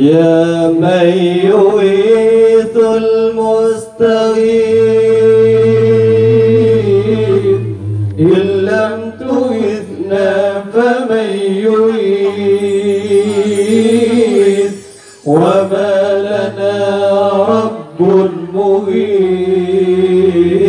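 Men chanting an Islamic devotional song (sholawat) into microphones, unaccompanied. The voices hold long, wavering notes in phrases, with short breaks between them.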